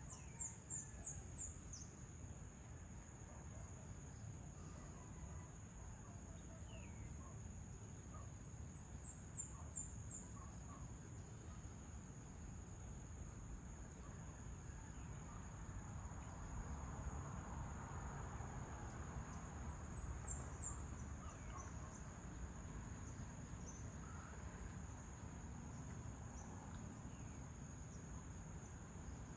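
Evening insect chorus: one unbroken high-pitched drone from crickets or similar insects. Three times, a short run of quick, falling high chirps sounds above it: near the start, about nine seconds in and about twenty seconds in. Under it all is a faint low rumble.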